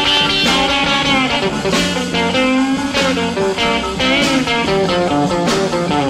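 Instrumental break of a late-1950s rock and roll record: electric guitar playing lead over bass and a steady beat.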